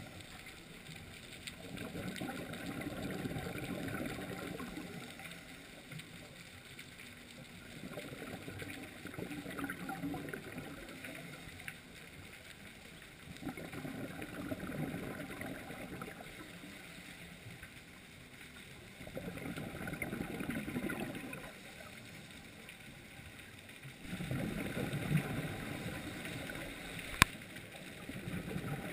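Scuba diver's breathing through a regulator underwater: the bubbling rush of exhaled air comes six times, about every five to six seconds, with quieter gaps between. A single sharp click sounds near the end.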